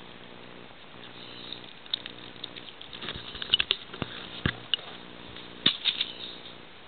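Dry leaf litter crackling and ticking in scattered bursts, thickest in the middle and again near the end, over a steady low hum.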